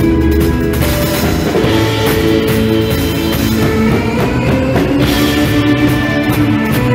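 Live rock band playing an instrumental: electric lead guitar, bass guitar, drum kit and keyboard, with held melody notes over a steady beat.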